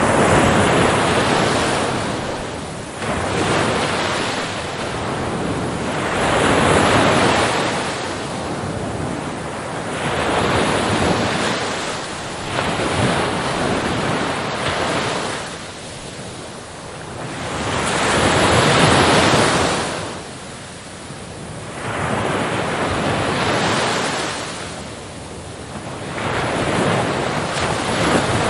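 Big ocean waves crashing against the shore, each a rushing surge that swells and fades, coming every three to five seconds.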